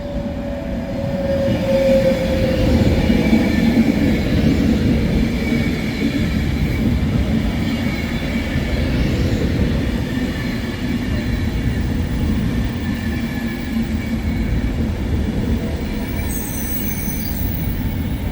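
A train running on the track with a steady rumble and wheel squeal, getting louder over the first two seconds. A sharper, high-pitched squeal comes near the end.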